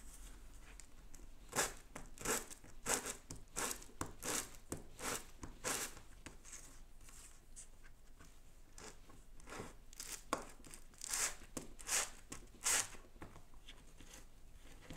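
A medium-grit sanding sponge rubbed over smooth styrene plastic card in short, light one-way strokes, roughing up its shiny surface. Each stroke is a brief scratchy rasp, about one every half second to second. They come in two runs with a pause of a few seconds between.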